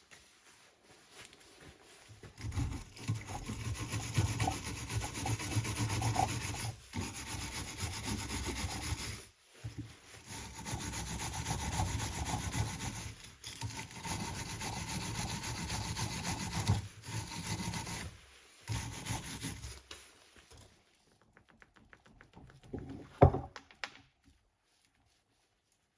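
Scraping and rubbing on brake hardware, in runs of several seconds with short breaks, then a single sharp knock near the end.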